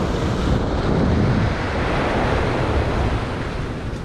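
Surf washing up the beach: a rushing swell of water noise that peaks about a second in and slowly fades, with wind rumbling on the microphone.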